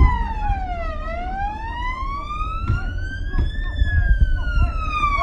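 Siren wailing in one slow sweep: the tone falls to its lowest pitch about a second in, climbs for nearly three seconds, then starts to fall again near the end.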